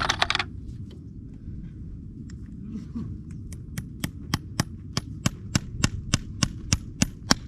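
Farrier's hammer striking metal in a quick, even run of about four taps a second, starting about halfway in and stopping just before the end. A short burst of noise opens it, with a steady low rumble underneath.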